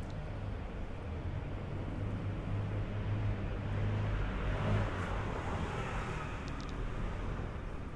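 Street traffic: a motor vehicle passes close by, a low engine hum with a swell of road noise that builds to its loudest about halfway through and then fades.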